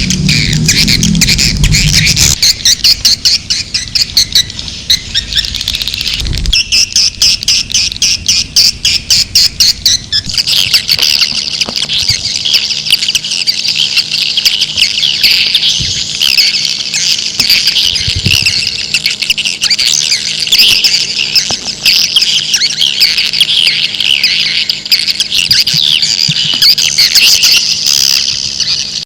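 Recorded swiftlet calls played as a lure for a swiftlet house: a dense flock chorus of high-pitched chirps and twitters. The first part is rapid, clicky chirping, and from about ten seconds in it becomes a continuous thick twittering.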